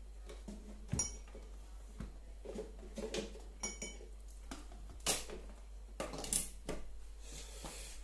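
Scattered light clicks and knocks, about one every second, as hands work around the top and back of a DeLonghi espresso machine and its power cords while switching it on.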